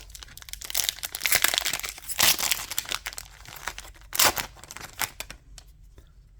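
Sealed collector booster pack wrapper being torn open and crinkled by hand, with dense crackling and two louder rips, one about two seconds in and one about four seconds in.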